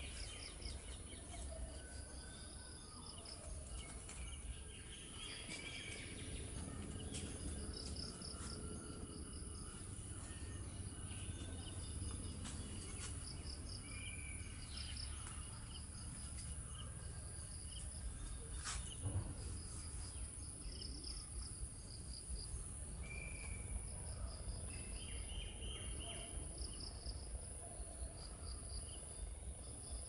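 Wetland field ambience: insects trilling in repeated pulses over a steady high insect hiss, with scattered short bird calls and a low rumble underneath. A single sharp click about 19 seconds in.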